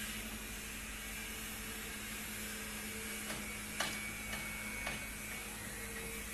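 Kobelco long-boom excavator's diesel engine running with a steady hum. From about halfway through come a few sharp clicks, about half a second apart.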